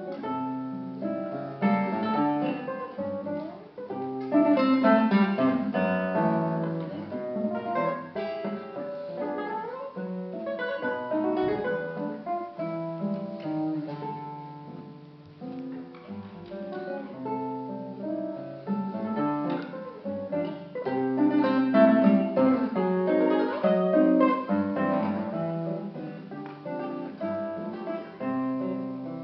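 Solo classical guitar playing a waltz, plucked melody notes over chords with strummed passages, the loudness swelling and falling from phrase to phrase.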